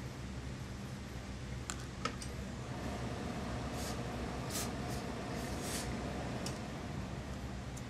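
Satin suit lining rustling in short bursts as it is handled and smoothed by hand, with a few light clicks about two seconds in, over a steady low hum.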